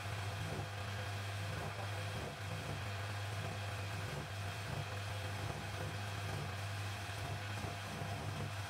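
Homemade metal lathe turning a steel shaft under a cutting tool: a steady low motor hum with an even hiss of the cut.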